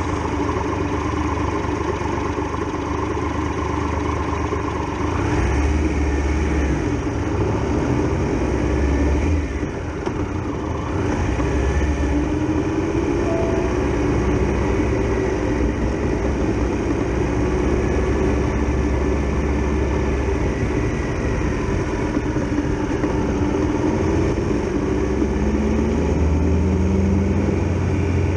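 Triumph Tiger Explorer XRx motorcycle's three-cylinder engine running while riding, its pitch rising and falling a few times as the revs change, with a short dip in loudness about ten seconds in.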